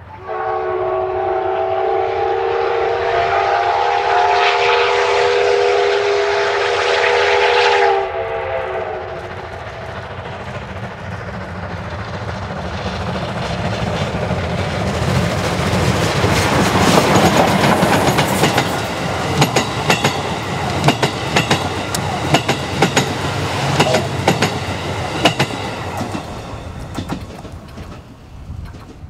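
Steam locomotive whistle blowing one long chord for about eight seconds, then the train passing: a rising rumble of the locomotive and its running gear, followed by the coaches' wheels clicking in a steady rhythm over rail joints.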